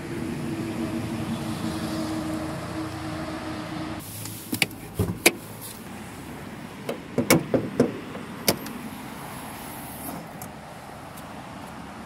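A car engine idles with a steady hum for about four seconds. Then come two clusters of sharp clicks and knocks, as a car bonnet is unlatched and raised.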